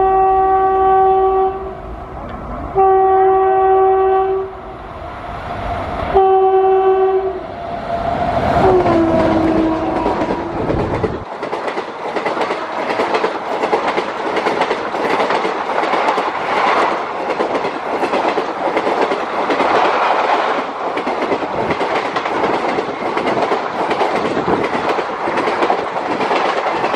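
WAP7 electric locomotive sounding its horn in three long blasts, the first already going at the start, with a short horn note dropping in pitch as the locomotive passes. Then a rake of ICF passenger coaches runs past at speed with a rhythmic clickety-clack of wheels over rail joints.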